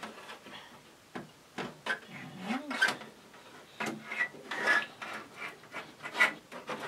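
Plastic case top of a TRS-80 Model 4 scraping and knocking against its base as it is slid forward into place: a string of short rubs and clicks.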